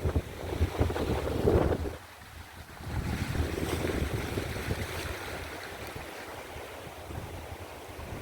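Strong wind buffeting the microphone in gusts, with sea surf rushing behind it; the buffeting drops off sharply about two seconds in, leaving a steadier wash of wind and waves.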